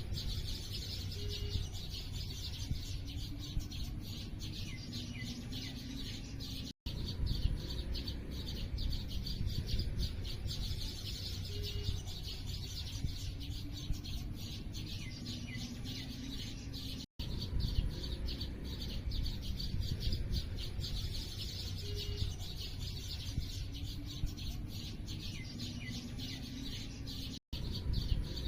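A dense chorus of small birds chirping continuously over a low background rumble. The sound cuts out briefly three times, about ten seconds apart, where a short recording loops back and repeats.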